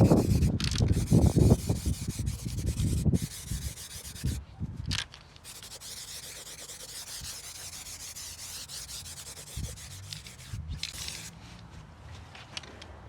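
Stone chip coating being applied to a car's rear trailing arm: rough rubbing strokes for the first few seconds, then a fainter steady hiss that breaks off briefly a few times.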